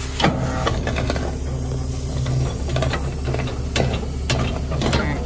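A tow truck's recovery gear is working: sharp mechanical clicks over a steady low hum and a drone that comes and goes.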